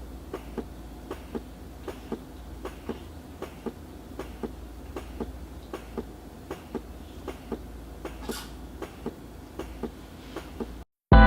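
Electric breast pump running: a steady low motor hum with a regular click about twice a second as it cycles its suction.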